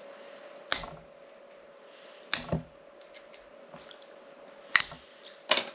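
Brittle plastic of a car key shell cracking and snapping as it is broken away piece by piece. There are four sharp snaps, and the second is quickly followed by another.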